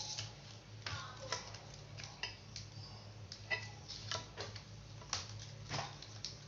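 About ten light, irregular clicks and taps of small tools and parts being handled on a phone-repair bench, over a steady low hum.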